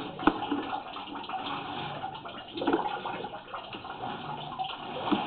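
Water running and splashing down a washing machine drain line under a flow test, with a sharp knock shortly after the start.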